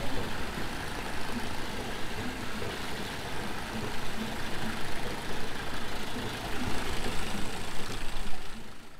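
Steady mechanical rumble with a hiss over it, fading out at the very end.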